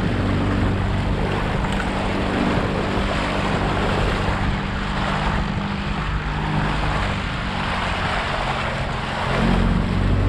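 Small boat's outboard motor running steadily under way, with a constant hiss of wind and rushing water over it; the engine swells a little near the end.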